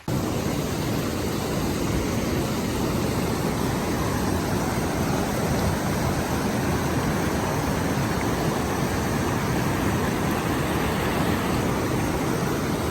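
Steady rushing of a waterfall, an even wash of water noise with no breaks.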